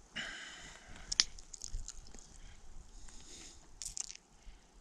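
Faint rustling and crunching of dry leaf litter and clothing close to the microphone as a hand moves over the trail. There is a sharp click about a second in and a short cluster of clicks near four seconds.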